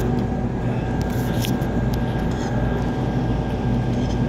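Steady low machine hum with a faint constant high whine. A few light clinks of cutlery on dishes come about a second in and again midway.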